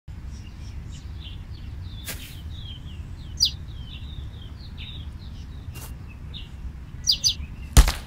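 Cartoon meadow ambience of small birds chirping over a low steady background, with a few louder chirps, then a single sharp punch impact just before the end.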